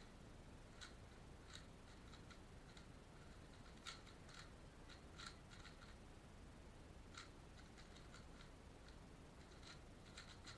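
Faint, irregular clicking of a Valk 3 Power M 3x3 speedcube as its layers are turned quickly during a solve, a few clicks a second with the sharpest about four and five seconds in.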